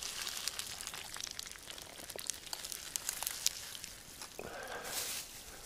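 Crackling and sizzling of cooking over a campfire: many small sharp clicks over a light hiss. About four seconds in there is a second of denser rustling noise.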